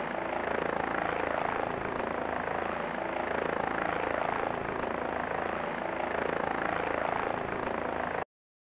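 Helicopter sound effect: a steady rotor and engine noise that cuts off abruptly near the end.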